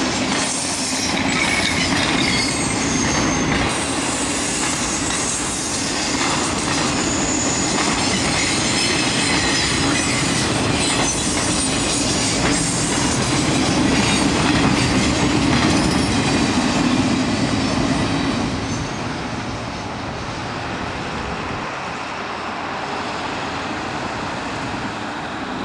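Ringling Bros. circus train of loaded flatcars rolling past close by: steel wheels clattering steadily over the rail joints, with thin high wheel-on-rail squeals in the first several seconds. It grows a little quieter after about 18 seconds.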